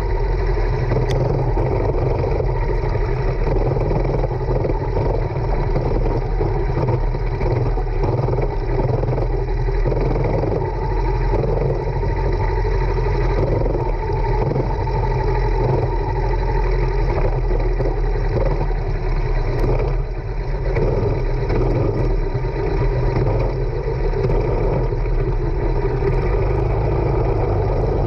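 Racing kart engine running steadily under way, heard from the kart itself, with a brief dip in loudness about two-thirds of the way through.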